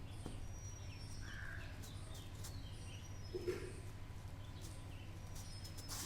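Faint background ambience: a steady low hum with a few short, high bird-like chirps and whistles, and one brief low sound about three and a half seconds in.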